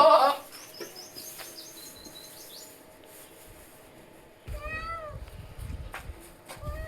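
Cat meowing: one drawn-out meow that rises and falls about four and a half seconds in, and another starting near the end. Faint bird chirps sound in the background early on.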